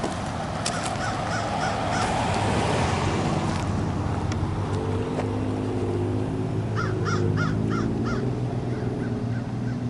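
A bird calling in a quick run of about five short calls about seven seconds in, with a few fainter calls near the start, over a steady low hum and outdoor background noise.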